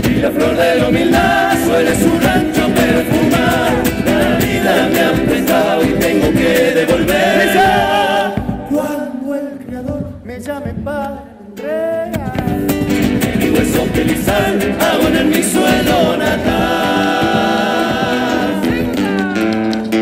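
Live folk music: several male voices singing together over acoustic guitars and bombo drums. About eight seconds in the accompaniment thins out, leaving mostly voices, and the full band comes back in about twelve seconds in.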